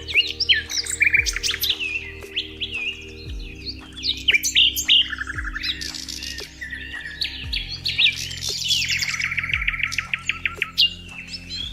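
Several birds chirp and sing over one another, with a fast trill of quickly repeated notes near the end. Underneath is soft background music with held low tones and a deep note that repeats about every two seconds.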